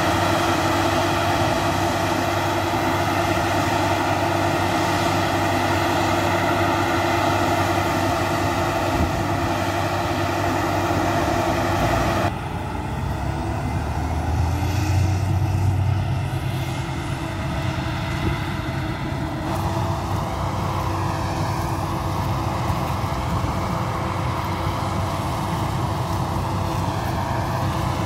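Claas Lexion 660 combine harvester running while harvesting: a steady drone of engine and threshing machinery with a constant hum. The sound changes abruptly about twelve seconds in.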